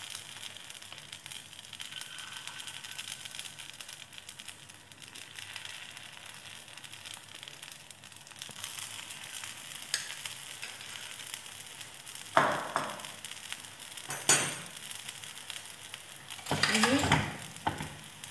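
Rice batter sizzling in hot oil as small spoonfuls are poured into the cups of a non-stick paniyaram pan, a steady frying hiss. Sharp knocks come about twelve and fourteen seconds in, and a longer clatter comes near the end.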